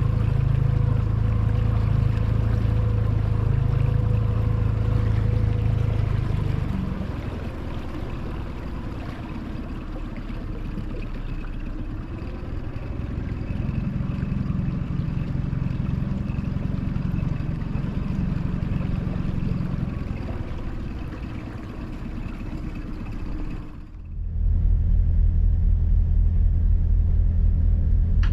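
Small boat's motor running at a steady pace, then easing off and turning more uneven about seven seconds in as it closes on the anchored boat. Just before the end it breaks off suddenly into a different, steady low engine hum.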